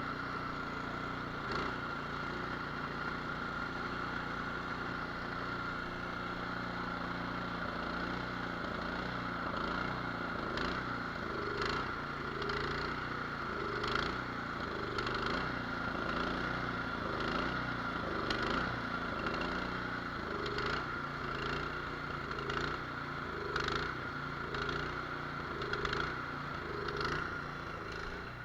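Cub Cadet two-stage snowblower's 208cc single-cylinder engine running unevenly, its note rising and falling about once a second from about eight seconds in. This is the sign of a clogged idle jet that is not clearing itself.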